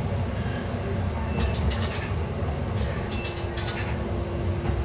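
KiHa 11 diesel railcar running along the track, heard from the cab as a steady low rumble of engine and wheels. Two short bursts of sharp rattling clicks come through, about a second and a half in and again near the three-second mark, and a steady tone joins from about three seconds in.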